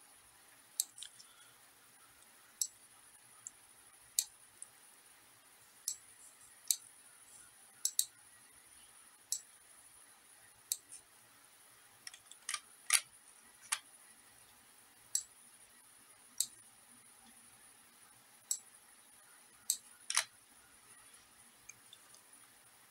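Computer mouse button clicks: sharp single clicks and quick pairs, irregularly spaced a second or so apart, over a faint high steady hiss.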